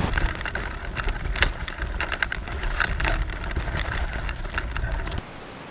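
Bicycle rattling and clicking as it rides over a rough track, with a low rumble underneath; it cuts off abruptly shortly before the end.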